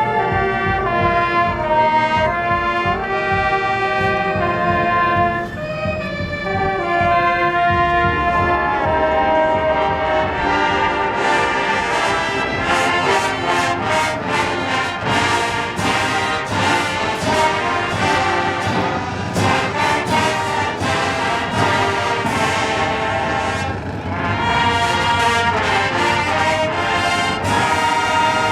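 Marching band brass playing the national anthem, in full sustained chords. About a third of the way in, drums and cymbals join in with dense strokes under the brass as the anthem builds toward its close.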